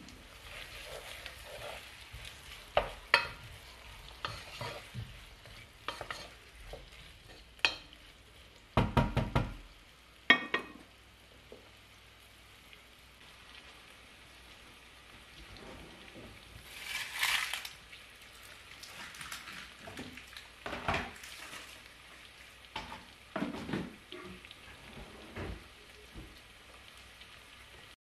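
Onions frying in a pot while a wooden spoon stirs them, with scattered knocks and clatter of cookware and utensils; the heaviest is a cluster of knocks about nine seconds in.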